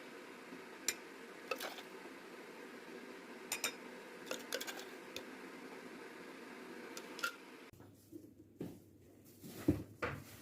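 Kitchen dishes and utensils clinking: a handful of separate sharp clinks over a steady hum. The hum stops abruptly near the end, and softer knocks follow.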